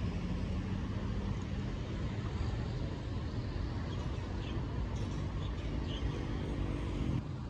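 Road traffic: a steady low rumble of cars with a faint engine hum, and a few faint high chirps around the middle. The sound drops off abruptly near the end.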